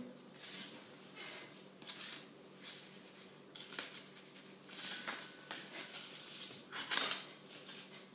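A table knife cutting and scraping against a plate in a string of irregular short strokes, the strongest about seven seconds in.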